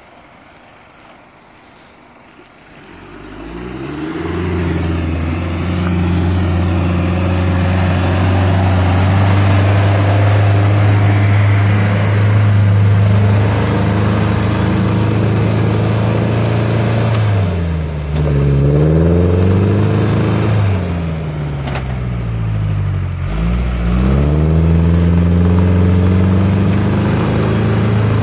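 Land Rover Defender 110's engine revving hard, coming in after about three seconds and holding high revs; twice in the latter part its pitch drops and climbs back as the revs fall and rise.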